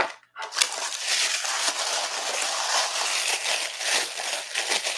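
Tissue paper crinkling and rustling as a wrapped piece of jewelry is unfolded from it, starting about half a second in with a sharp crackle and running on continuously.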